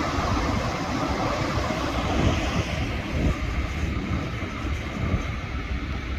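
Heavy diesel machinery running with a low rumble and a steady hiss that thins out about halfway through.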